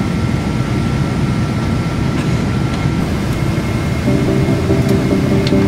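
Steady cabin noise inside an airliner. Music comes in about four seconds in.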